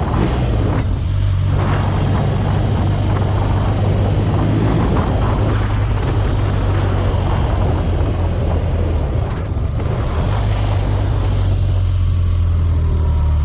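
BMW R nineT Urban G/S's boxer-twin engine running steadily while riding, with a steady low drone under heavy wind noise on the microphone.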